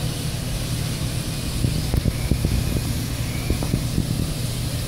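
A steady low engine drone, with sharp crackles and pops from the burning roof between about one and a half and four seconds in.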